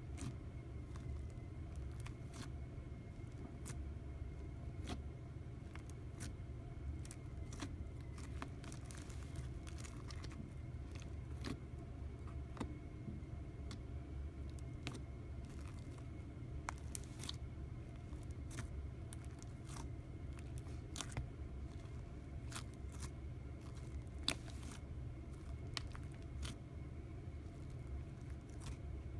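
Thick scented slime packed with small plastic beads being kneaded and pressed by hand, giving irregular crunchy crackles and clicks. A steady low hum runs underneath.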